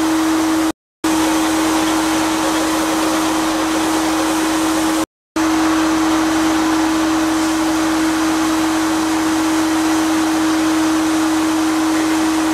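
HBM sandblasting cabinet in use: a steady loud hiss of compressed air and blasting grit, with a steady tone running through it. It drops out abruptly twice, briefly, about a second in and about five seconds in.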